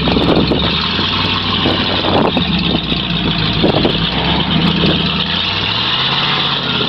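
Lifted pickup truck's engine idling steadily, its pitch rising a little about six seconds in.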